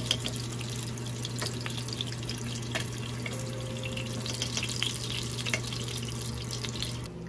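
Beef sizzling and crackling as it fries in a pan, over a steady low hum. The sizzle cuts off just before the end.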